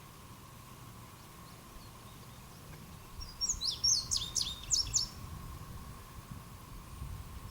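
A songbird singing a quick run of high chirps for about two seconds, starting about three seconds in, over a faint steady hum that the recorder takes for a mysterious sound in the sky.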